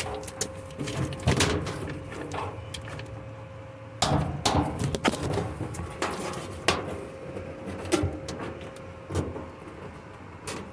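Irregular clicks and knocks of hands working on a washing machine's parts, fitting clips onto the level hose, with a few sharper knocks about 4 s in and again later.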